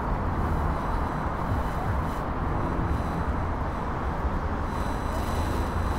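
Steady city traffic rumble and street noise, heaviest in the low end. Faint thin high whistles come in near the end.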